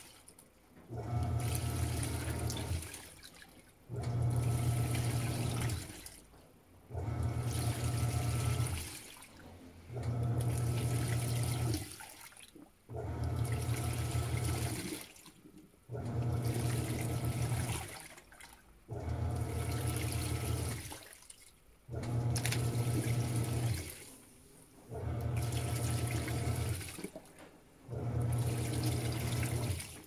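Panasonic 16 kg top-load washing machine agitating a load of clothes in soapy water. The motor hums and the water churns in strokes of about two seconds, each followed by a pause of about a second, repeating roughly every three seconds.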